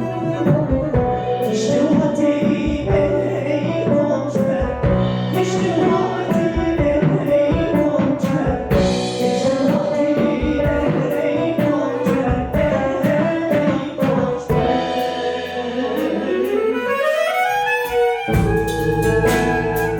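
A live world-music band playing: female voice with guitar, violin, clarinet and drums. About three quarters of the way through, the low end and drums drop away under a long rising slide, then the full band comes back in.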